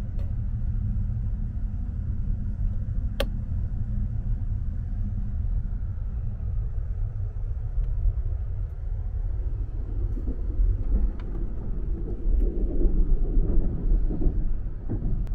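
Sleeper express train running, heard inside the carriage: a steady low rumble of the moving car, with a single sharp click about three seconds in. The rumble grows louder and rougher near the end.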